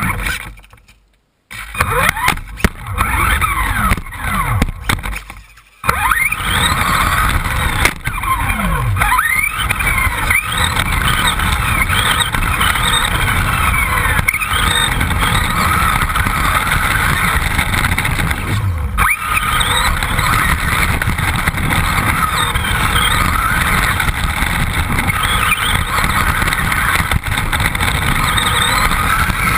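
R/C buggy's motor heard from a camera mounted on the car, its whine gliding up and down in pitch as the car speeds up and slows, over a steady rough noise. It comes in a few short bursts in the first six seconds, then runs without a break.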